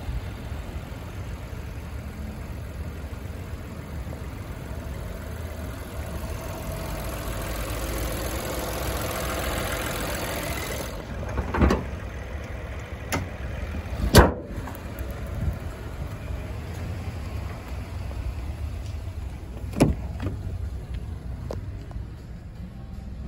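Steady outdoor traffic rumble that swells for a few seconds, then a handful of knocks and one loud thump about halfway through as a car door is opened and shut, with another sharp knock later.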